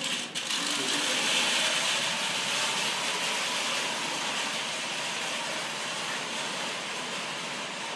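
An FRC robot's electric drive motors and gearboxes running as it drives away on carpet: a steady whirring noise that slowly fades as the robot moves off. The sound dips briefly right at the start.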